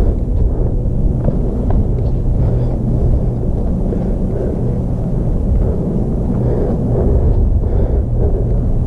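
Wind buffeting on the microphone of a moving body-worn camera, a loud, steady low rumble with a few faint ticks mixed in.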